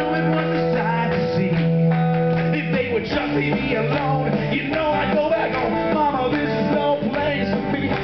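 Rock-and-roll backing track playing over the PA speakers in an instrumental break between sung verses.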